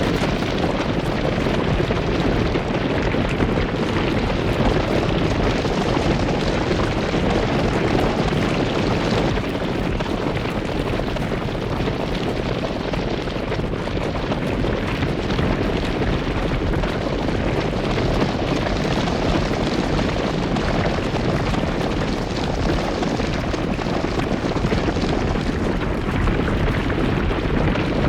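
Steady, loud rumbling noise with no distinct calls or separate sounds; its character shifts slightly about nine seconds in.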